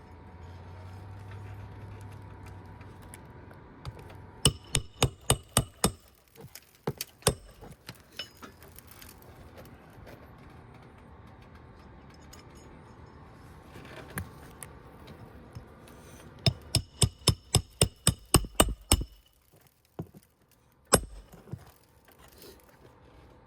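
Hammer blows on an asphalt shingle roof, coming in quick runs of about five strikes a second with pauses between, and one last single strike near the end.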